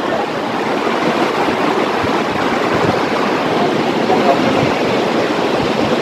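Steady rushing of Vasudhara Falls, a tall mountain waterfall dropping down a rock cliff, much of its water coming down as spray.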